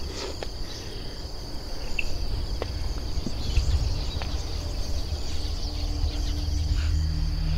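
Crickets chirring in a steady high drone over a low outdoor rumble. Near the end a low steady hum comes in and the overall sound slowly swells.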